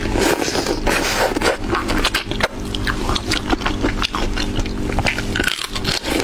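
Close-miked mouth sounds of eating shrimp: wet chewing, sucking and lip smacks in many quick, irregular clicks.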